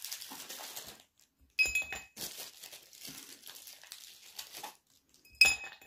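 Ice cubes dropped one at a time into a tall empty drinking glass: two sharp clinks with the glass ringing briefly, about a second and a half in and near the end, with soft rustling in between.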